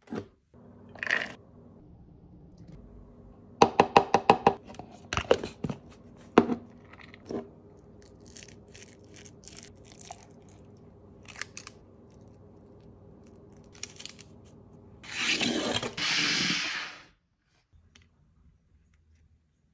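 Kitchen food-prep handling sounds: scattered knocks and clinks, a quick run of about eight sharp strikes about four seconds in, a metal cookie scoop scraping sticky pea and lentil mixture out of a plastic blender jar, and a rustling burst of about two seconds near the end.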